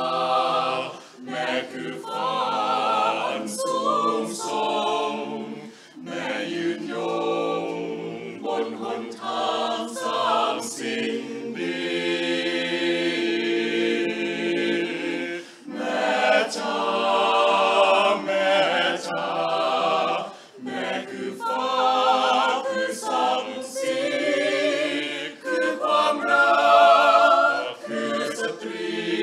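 Mixed choir of men's and women's voices singing a cappella in harmony. The chords are held with vibrato, in long phrases broken by short pauses for breath.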